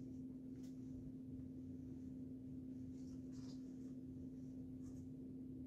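Quiet room tone with a steady low hum, and a few faint rustles of a knit garment being handled.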